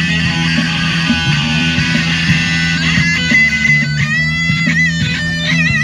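Electric guitar played through a small combo amp, a blues lead: busy picking at first, then from about halfway long high sustained notes with bends and vibrato, over a steady low note.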